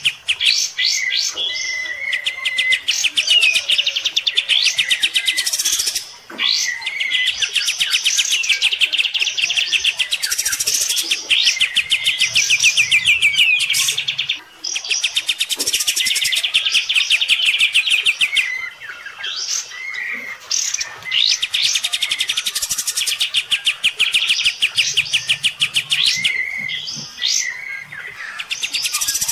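Kapas tembak bulbul singing its rapid, rattling song: long runs of quick repeated notes several seconds each, broken by short pauses.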